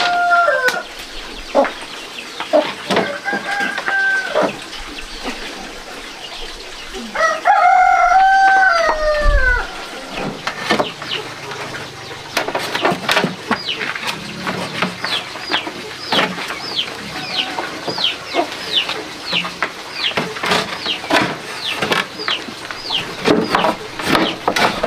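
A rooster crows about three times in the first ten seconds: long held calls that drop in pitch at the end. After that comes a quick run of high, short, falling chirps, about two a second, with scattered light knocks.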